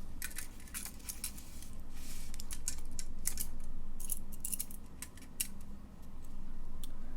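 Scattered light clicks and clatter of plastic two-way light switches being handled and set down, over a steady low hum.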